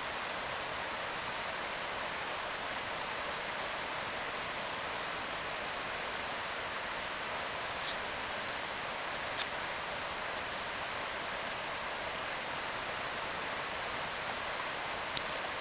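Steady rush of a shallow river running over rocks, with three brief sharp clicks, two around the middle and one near the end.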